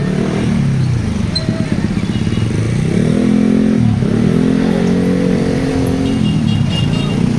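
Tour bus basuri air horn playing a tune: loud held notes joined by swooping slides in pitch, over the rumble of the bus.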